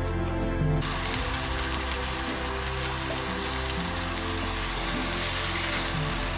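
Soft background music, with a steady hiss cutting in about a second in and running on under it.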